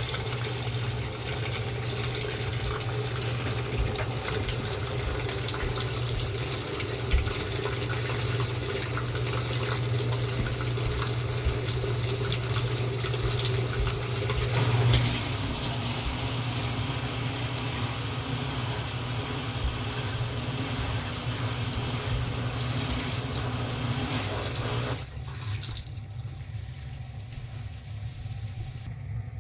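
Washing machine running through its cycle: water rushing and splashing over a steady motor or pump hum. About fifteen seconds in the hum changes, and about 25 seconds in the sound drops to a quieter level.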